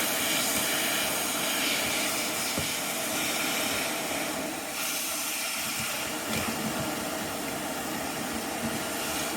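ATTEN ST-862D hot air station's handpiece blowing a steady hiss of hot air from its brushless fan, aimed at a circuit board to melt the solder on a pin header.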